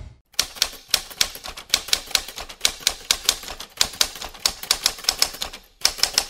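Typewriter keys striking in a quick, uneven run of clacks, several a second, with a short pause near the end, as text is typed out.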